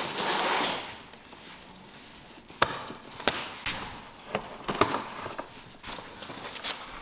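Packing tape on a cardboard shipping box being slit and torn, a brief tearing noise in the first second. This is followed by a string of sharp knocks and cardboard rustles as a long carton is handled and its flaps are pulled open.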